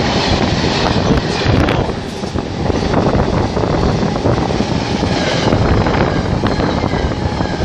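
A freight train's wagons rolling past close by, wheels rumbling and clattering on the rails in a steady, loud run, with wind rumbling on the microphone.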